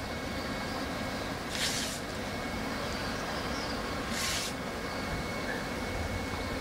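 Steady background hum and hiss of running equipment with a faint high steady tone, broken twice by short bursts of hissing noise, about a second and a half in and about four seconds in.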